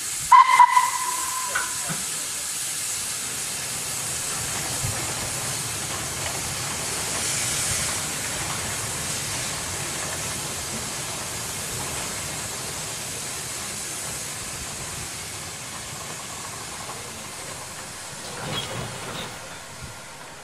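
Model train running past on a layout, hauled by a converted toy tram locomotive: a steady hiss throughout, with a brief high tone about half a second in.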